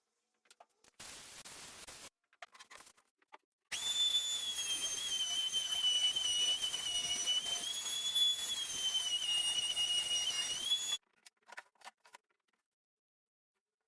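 Electric power saw running with a steady high whine for about seven seconds, the pitch sagging slightly now and then as it cuts wood. The sound starts and stops abruptly, and a shorter burst of noise and a few faint clicks come before it.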